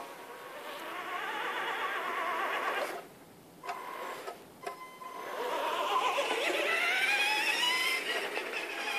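Tamiya Lunchbox RC monster truck's electric motor whining, its pitch wavering with the throttle and cutting out briefly twice around the middle, then climbing steadily as the truck accelerates near the end.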